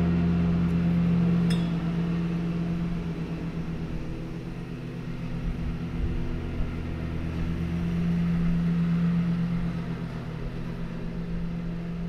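A steady low electrical-sounding hum that swells and fades slightly, with a light click about a second and a half in.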